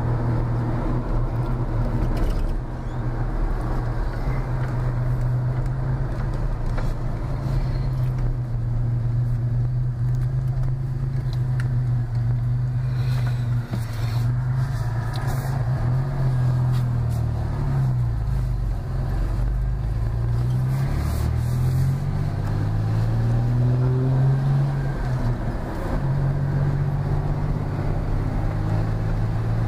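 Chevrolet car running down the road, heard from inside the cabin: a steady low engine and road drone whose pitch falls and rises several times past the middle.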